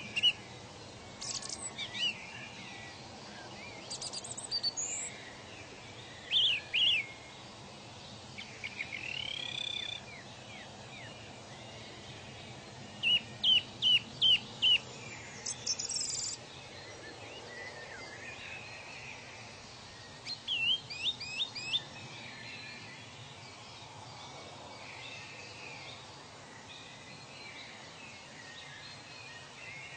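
Wild birds singing in short runs of quick chirps and clear whistles, a few notes at a time, repeating every few seconds over a steady faint background hiss. The calls stop a little past two-thirds of the way through, leaving only the hiss.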